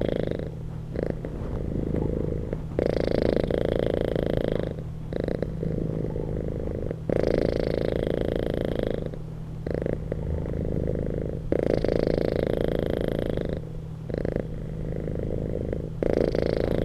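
Domestic cat purring close up, a continuous low rumble that swells and eases in alternating louder and softer phases, roughly every four seconds.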